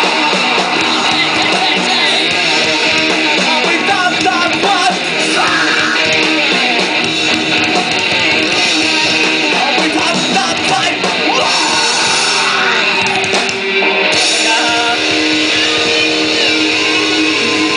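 Hardcore band playing loud and steady through a live PA, with electric guitar and vocals on microphone.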